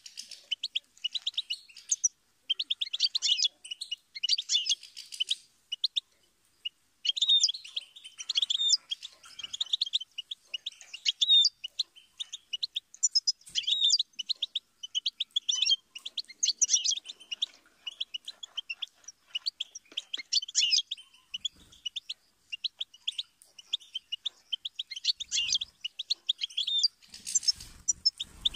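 European goldfinch singing: long runs of rapid, high twittering and trills, broken by a pause of about a second and a half some six seconds in.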